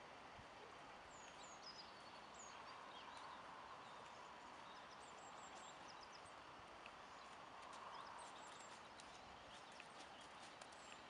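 Near silence: quiet outdoor ambience with faint, scattered bird chirps.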